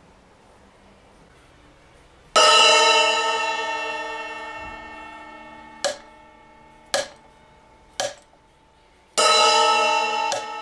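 Two 8-inch Saluda Rock splash cymbals struck with a wooden drumstick. About two seconds in, the bare cymbal is struck and rings with a long, slowly fading shimmer. The cymbal treated with sound damping compound is then struck three times, each hit a short clank that dies away within half a second, and near the end the bare cymbal is struck again and rings on.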